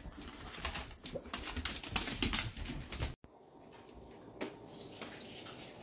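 Dogs moving about on a hard floor: irregular clicks and rustling. After a sudden cut, a quieter stretch follows with one short knock.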